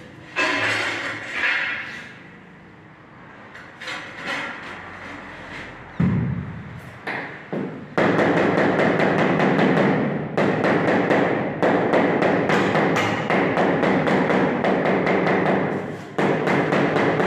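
Wall tiles being set into mortar by hand: a few scattered knocks and thumps, then from about eight seconds in a long run of rapid tapping on the tiles.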